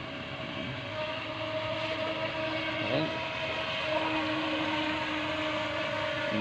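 Electric motor of a small RC boat running at speed: a steady whine with a sustained pitch, over the hiss of the hull on the water.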